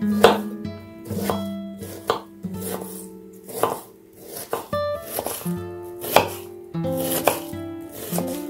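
Kitchen knife dicing an onion on a wooden cutting board: a dozen or so sharp blade knocks on the board, about two a second, over acoustic guitar background music.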